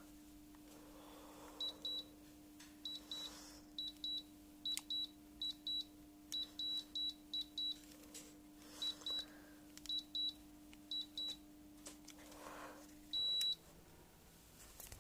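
Electronic control beeps from a household air appliance over its steady running hum: a series of short high beeps, mostly in pairs, as settings are pressed. About 13 seconds in comes one longer, louder beep, and the hum stops with it as the unit switches off.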